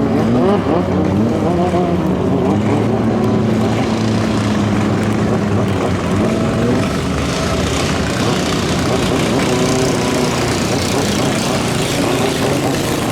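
Racing boat engine running hard, its pitch dipping and climbing as it revs.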